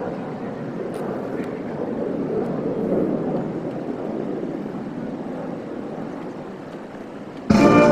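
Jet rumble from F-15SG fighters, swelling about three seconds in and then fading away. Near the end, loud band music with strings and brass starts abruptly.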